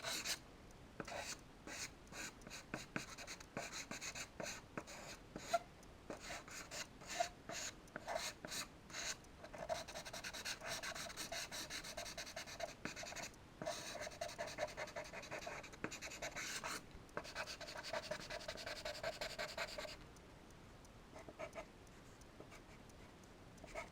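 Charcoal scratching across drawing paper in quick short strokes, a rapid run of them almost without pause in the middle, then only a few scattered strokes near the end.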